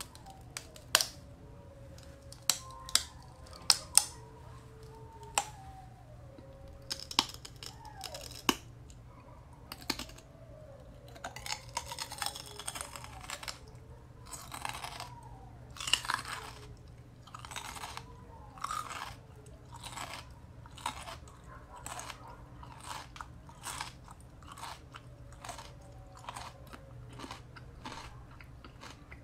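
Raw celery stalks eaten close to the microphone. A few loud, crisp snaps come in the first four seconds as pieces are bitten off, followed by wet crunching chews, which settle into an even rhythm of about three chews every two seconds in the second half.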